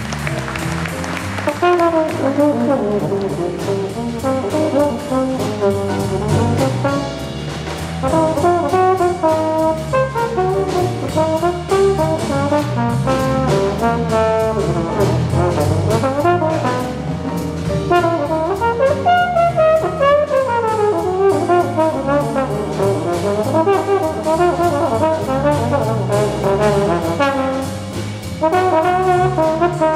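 Jazz trombone solo over a swinging big-band rhythm section with drum kit: quick melodic phrases, with a long falling run about two-thirds of the way through.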